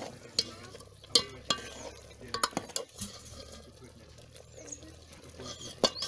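A ladle stirring a thick curry in a metal cooking pot, scraping and knocking against the pot's side in a few sharp clacks, the loudest about a second in and near the end.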